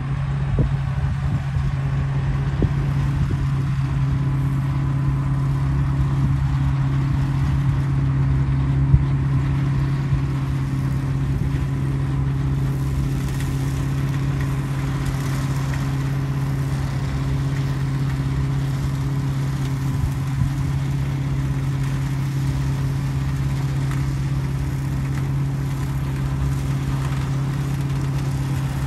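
Small engine of a grass-cutting machine running steadily at constant high speed, a single unchanging drone.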